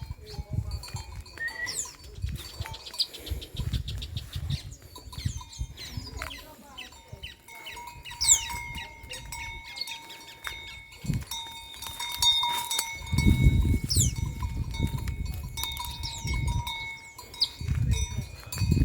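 Songbirds chirping with quick falling whistles among grazing dairy cows, with intermittent low rumbles.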